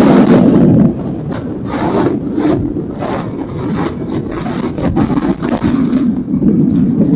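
Motorcycle engine and exhaust heard from an on-bike camera: running loud at first, dropping off sharply a little under a second in, then a lower, uneven rubbing and scraping noise until the engine note builds again near the end.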